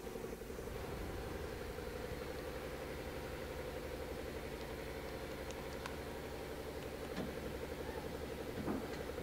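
Mori Seiki NH4000 DCG horizontal machining center running through an automatic pallet change: a steady mechanical hum with a pulsing tone, and a few light clicks in the second half.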